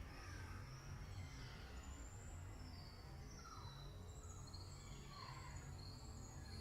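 Faint birds calling in the distance: short thin high notes and a few falling chirps scattered through, over a low steady background hum.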